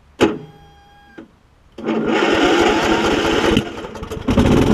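Troy Bilt Bronco lawn tractor's Kohler Courage engine being restarted: a click near the start, then the electric starter cranks it and it fires up and runs near the end. The starter has not been used in a while.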